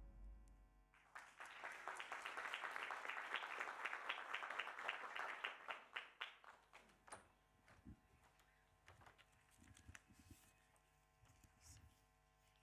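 Audience applause that starts about a second in and dies away after about six seconds to a few scattered claps.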